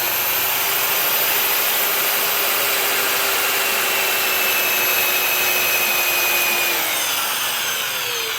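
Electric drill running at steady speed as the bit bores a hole into a wooden log. About seven seconds in, the motor's pitch falls as it slows and winds down.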